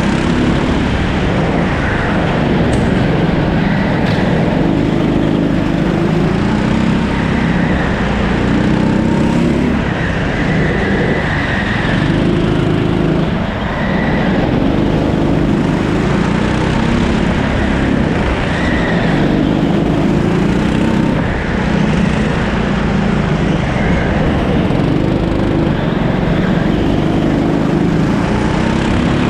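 A Rimo rental kart's 13 hp four-stroke single-cylinder engine running hard through a lap. Its revs climb and drop back every couple of seconds as the kart accelerates out of corners and lifts into the next.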